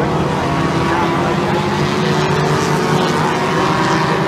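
Engines of a pack of small classic saloon race cars running hard together as the field passes, several engine notes overlapping, one slowly rising in pitch.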